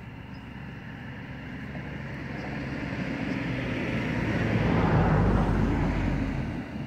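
A passing vehicle's noise that swells steadily, is loudest about five seconds in, then fades away.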